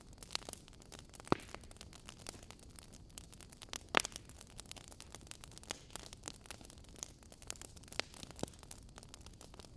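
Wood fire crackling: a soft hiss of burning logs with many small snaps and a few louder pops, about a second in, four seconds in and near the end.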